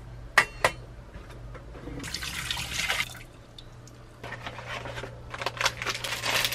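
Water poured into an empty stainless steel pot, a rushing splash in two stretches. Two short metallic clinks come about half a second in.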